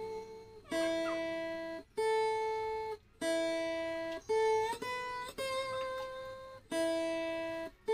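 Background instrumental music: a run of held chords, about one a second, each cut off sharply before the next.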